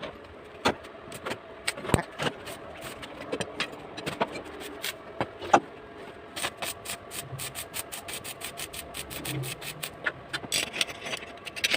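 A run of sharp metallic clicks, knocks and scrapes from parts and hand tools being handled during assembly of a tobacco-shredding machine. The clicks come faster and closer together from about halfway through.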